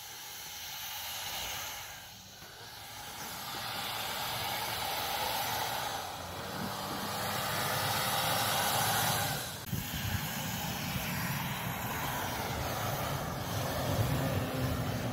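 A Toyota Land Cruiser's engine works hard as the SUV climbs through deep snow, its tyres spinning and churning the snow, over a steady rushing noise. The sound builds about a fifth of the way in, drops briefly near two-thirds of the way through, then carries on steady.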